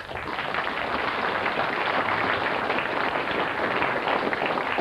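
Audience applauding: dense clapping from a large crowd that starts abruptly and holds steady.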